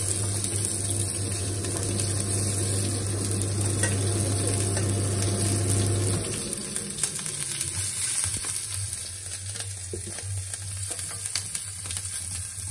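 Cumin seeds and chopped green chillies sizzling as they fry in hot oil in a stainless steel pan, with a steady low hum underneath that drops away about six seconds in. A few small clicks come near the end.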